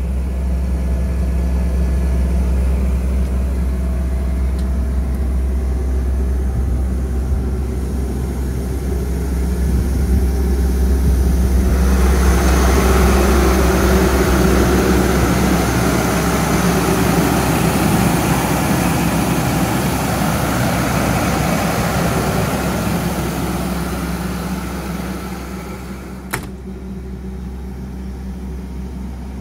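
Cummins QSB6.7 diesel engine of a Doosan / Ingersoll Rand 12/150 portable air compressor running steadily with a deep hum. The sound is louder and noisier for about the middle half, while the canopy side is open. A single sharp knock near the end comes as the canopy door is shut.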